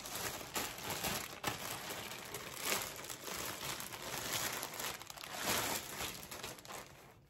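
Clear plastic poly bag crinkling and rustling in the hands as a garment is pulled out of it, with a steady run of crackles that dies away near the end.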